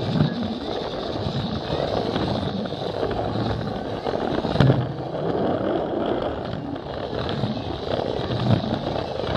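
Plarail toy train's small battery motor and gears whirring as it runs along plastic track, its wheels rattling steadily, with one sharper bump about halfway through. People talk in the background.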